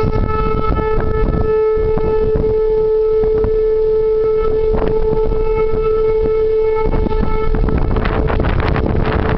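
Outdoor tornado warning siren sounding one steady, unwavering tone, over the rough low rumble of wind on the microphone. Near the end the siren's higher overtones fade and the wind noise grows.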